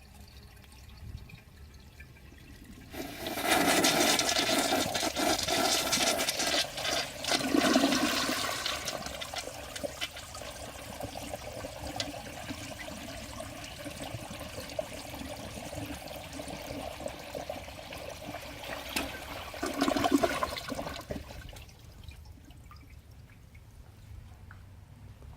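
1990 Kilgore 201 WS toilet flushing: a few seconds in the water rushes loudly into the bowl for several seconds, then settles into a quieter steady running with a faint steady hum as the tank refills. A short louder surge of water comes near the end, and then the running dies down.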